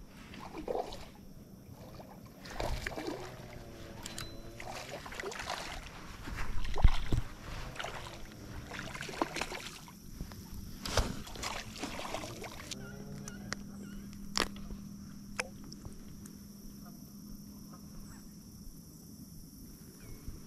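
Water splashing as a hooked smallmouth bass fights on the line in shallow river water, loudest about seven seconds in. Several bird calls sound over it, repeated and bending in pitch, in a few runs through the first two-thirds.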